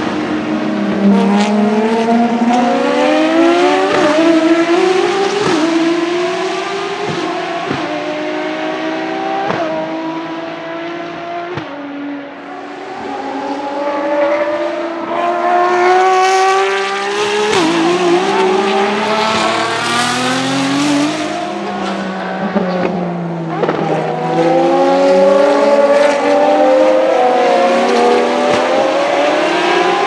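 Several Ferrari FXX K EVOs' V12 engines accelerating hard past and away, one after another. Each engine note climbs in pitch, breaks at a gearshift and climbs again, with the cars overlapping and a few sharp cracks from the exhausts.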